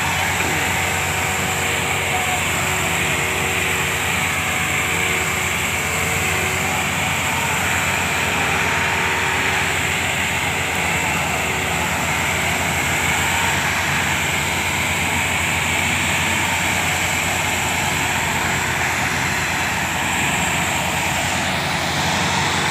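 Diesel tractor engines running steadily and loudly under load as Massey Ferguson tractors, one chained to another, haul a heavily loaded sugarcane trolley.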